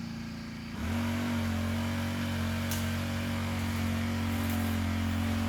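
Brush cutter engine running, throttled up about a second in and then holding at steady revs.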